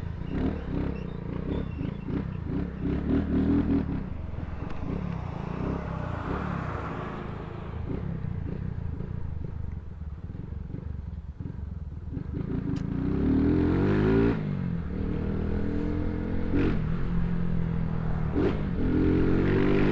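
Small motorcycle with a loud aftermarket exhaust being ridden, its engine revving up and dropping back through the gears, getting louder and revving harder from about twelve seconds in.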